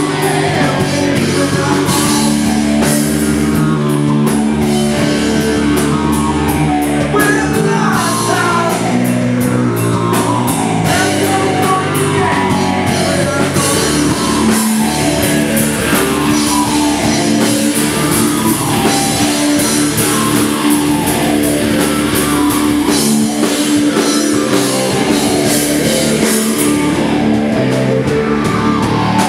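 Live stoner rock band playing loud: distorted electric guitar, electric bass and drum kit.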